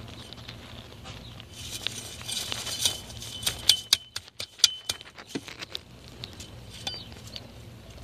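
Rustling and light crackling of dry grass and leaves being disturbed, with scattered sharp clicks in the middle stretch and a few brief, thin, high squeaks.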